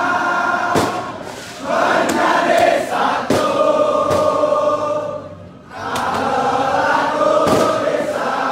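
A large crowd of football supporters singing a chant together, with a short break between phrases about five and a half seconds in. A few sharp thumps sound through the singing.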